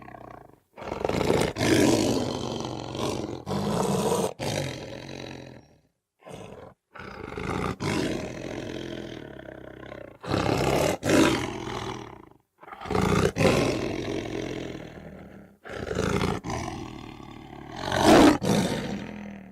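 Lion roaring in a series of long, loud bouts, the recording cutting off abruptly to silence between several of them as if separate roars were spliced together; the loudest roar comes near the end.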